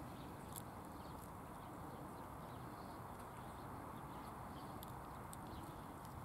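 A tabby cat eating food off pavement: a few faint sharp clicks of its mouth over a steady outdoor hiss.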